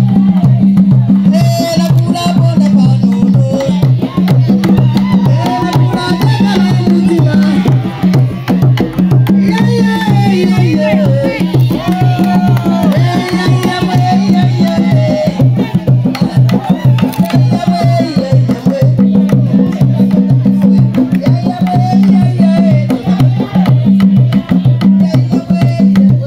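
Loud African party music with a steady, heavy drum beat and a singing voice over it.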